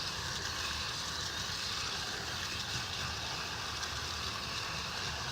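Garden hose spraying water onto an HVAC condenser coil, a steady hiss over a low rumble, rinsing the coil cleaner and dirt out of the fins.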